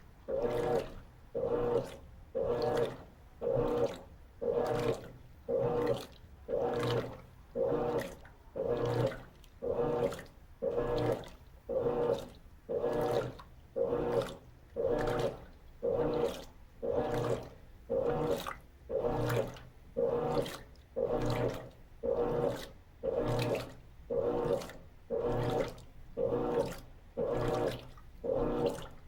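Electrolux LT13B top-load washing machine agitating a load of sheets and towels in water: the agitator swings back and forth, each stroke a swish and slosh of water, repeating evenly about once a second. This is the initial agitation of the wash cycle.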